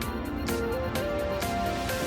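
Background music: held melody notes over a regular beat.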